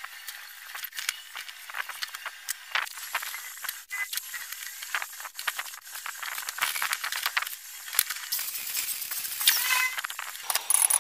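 Hand tools clinking, tapping and scraping against a steel tube frame while it is marked out with a combination square, as irregular light metallic clicks and rattles. A short high squeak near the end.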